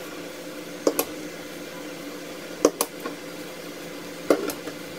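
Smooth steel 3D-printer rods being handled and wiped with a paper towel: three small clusters of sharp clicks, about a second in, near the middle and near the end, over a steady hum.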